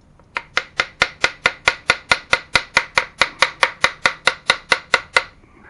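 Rapid, evenly spaced hammer taps on metal, about twenty strikes at four to five a second, each with a short metallic ring, stopping near the end: tapping at the engine's crankcase to free halves that are stuck tight.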